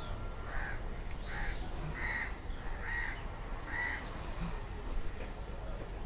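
A crow cawing five times in an even series, just under a second between calls, over a low background rumble.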